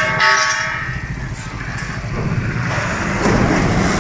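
White box truck's engine running and its tyres on the road as it drives past close by, a steady loud rumble with traffic noise. A brief high-pitched tone sounds at the very start.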